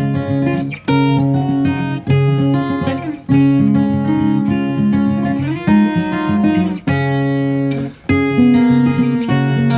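Background music: strummed acoustic guitar with plucked notes at a steady rhythm.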